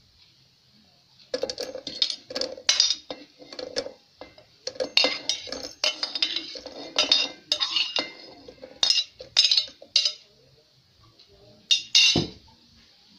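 Metal kitchen utensil clinking and scraping against cookware in a quick run of strokes, starting about a second in and stopping near ten seconds, then two more clinks near the end.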